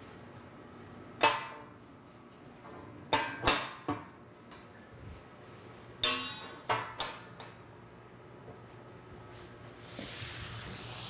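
Steel braces being set in place against a steel tank head and foot ring: about seven sharp metal clanks that ring on briefly, in small clusters. Near the end a broad rustling noise rises.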